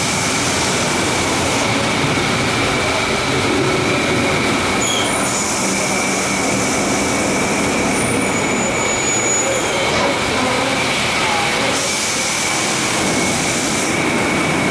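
Car wash machinery running: a steady mechanical whir with a constant high whine, and a high hiss that switches on and off a few times.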